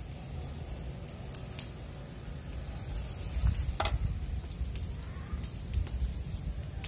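Low rumble with scattered small clicks and rustles of handling noise, the strongest click a little before four seconds in, over a steady faint high whine.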